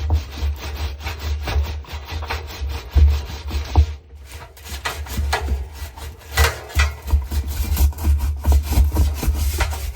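A stiff brush scrubbing the inside of a washing machine's detergent cup in quick back-and-forth strokes, pausing briefly about four seconds in, over a low handling rumble.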